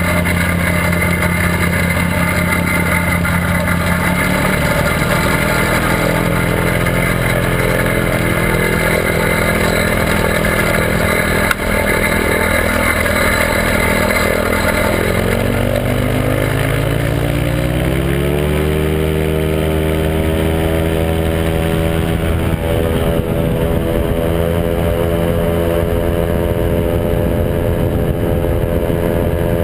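Quicksilver MXL Sport ultralight's engine and propeller running at high power through the takeoff, with air rushing past the microphone. About halfway through, the engine note rises over a few seconds, then holds steady into the climb.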